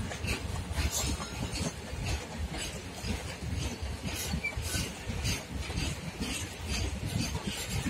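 Goods train wagons rolling past, their wheels clicking over rail joints about twice a second over a steady low rumble.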